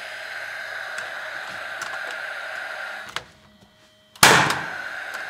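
A steady hum stops about three seconds in. About four seconds in, a nail gun fires once, a single loud bang as it drives a nail through a metal joist hanger into a wooden ceiling joist.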